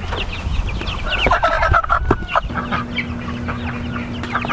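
Silkie chicks peeping, a rapid run of short, high, falling chirps, with a denser flurry of calls a little over a second in.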